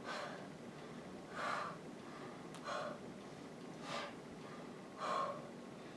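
A woman breathing hard from exertion: five short, forceful breaths, about one every second and a quarter.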